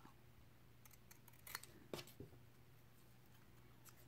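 Scissors snipping a small piece of black paper: a few faint, short snips, the clearest about one and a half and two seconds in.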